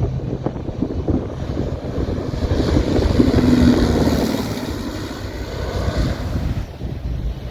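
Wind buffeting the microphone over the rush of surf on a beach, swelling to a louder rushing peak about three to four seconds in, then easing off.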